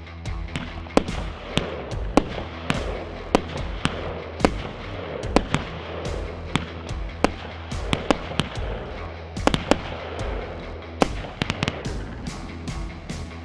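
Weco Fire Dome firework battery firing: sharp bangs and pops at uneven intervals, a few at a time, with quick clusters of shots past the middle and near the end. Background music with a steady bass runs underneath.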